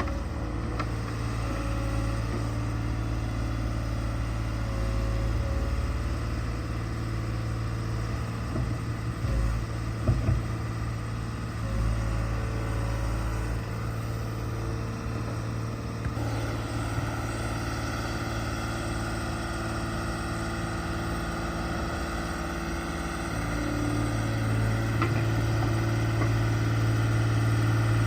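Case 125B excavator's diesel engine running steadily under working load, with a few sharp knocks about 9 to 10 seconds in. The engine note changes about halfway through and grows louder near the end.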